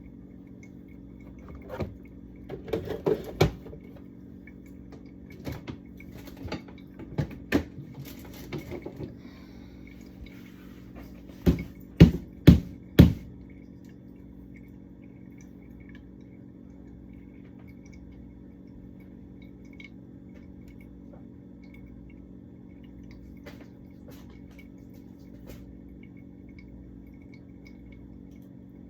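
Food containers and jars being handled and set down while a fridge is emptied: scattered clicks and clunks over the first nine seconds, then four sharp knocks close together about twelve seconds in, the loudest sounds, all over a steady low hum.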